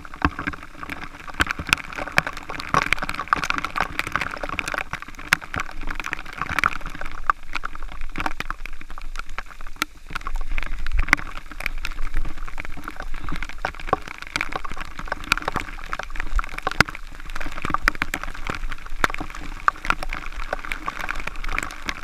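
Waterfall water pouring and splashing right at the microphone, with many sharp taps of drops striking the camera housing.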